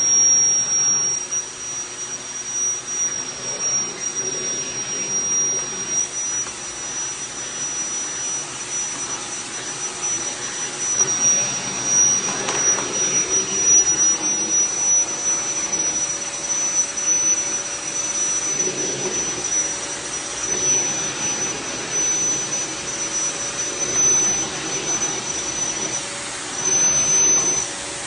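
Vacuum cleaner running, its motor giving a steady high-pitched whine over the rush of air.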